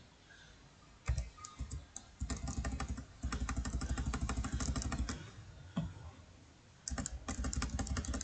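Computer keyboard keys tapped in fast runs: a short burst about a second in, a long steady run of keystrokes from about two to five seconds, and another run near the end.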